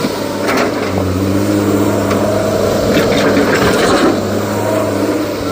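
Excavator's heavy diesel engine running steadily, its note stepping up slightly about a second in and easing back near four seconds, with scattered knocks.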